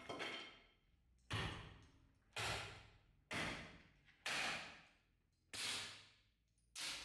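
A Khevsur sword's blade swished through the air six times, about one a second, each swish starting sharply and fading out.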